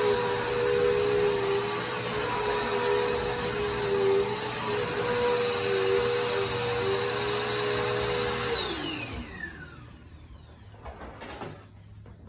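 Corded upright vacuum cleaner running steadily, then switched off about two-thirds of the way through, its motor whine falling in pitch as it spins down. A few light knocks follow in the quiet after it.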